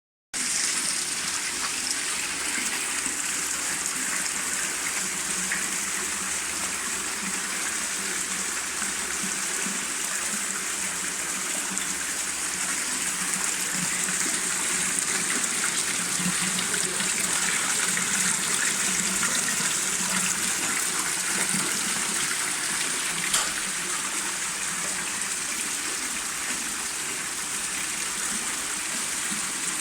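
Water pouring and splashing steadily down a decorative rock-style cascade, an artificial home and garden water feature.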